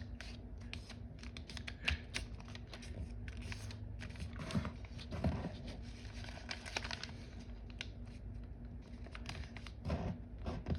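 Foil origami paper being folded and creased by hand, crinkling and crackling irregularly.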